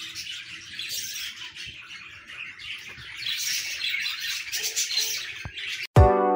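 Budgerigars chirping and chattering, many quick calls overlapping and growing busier about halfway through. Near the end a music track with a heavy beat cuts in suddenly.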